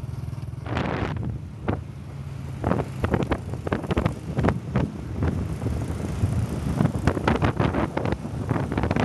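Motor scooter engine running on the move, with wind buffeting the microphone in irregular gusts from about a second in.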